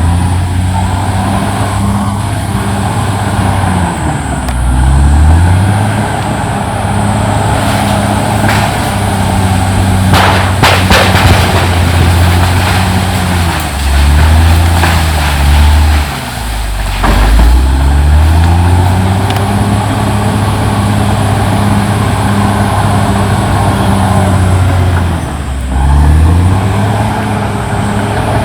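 CAT D6R XL bulldozer's diesel engine working hard under load, its pitch sagging and recovering four times as it lugs down and picks back up. A few sharp knocks or cracks come about ten seconds in and again near the seventeen-second mark.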